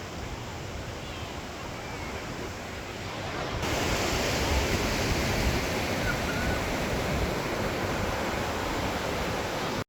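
Steady rushing roar of Takakkaw Falls, a very tall waterfall, mixed with wind buffeting the microphone; it steps up louder and brighter about three and a half seconds in.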